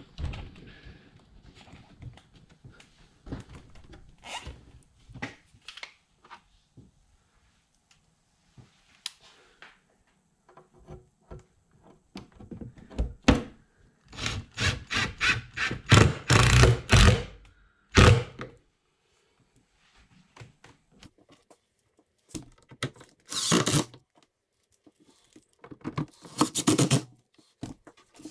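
Cordless drill driving screws through an aluminum angle strip into wood, in several loud runs from about halfway through and again near the end. Scattered knocks and thunks from parts being handled and lined up come before.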